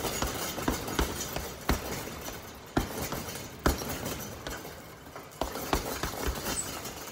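Boxing gloves punching a hanging heavy bag: a string of thuds at uneven spacing, coming less often after about two seconds.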